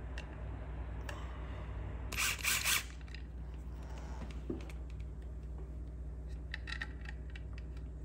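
A short scrape of the smart dimmer switch's plastic frame being pushed back into the wall box, about two seconds in, then a few light clicks of handling parts and a screw, over a steady low hum.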